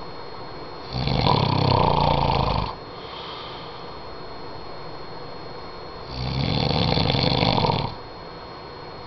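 A sleeping man snoring: two loud snores about five seconds apart, each nearly two seconds long, with a softer breath between them.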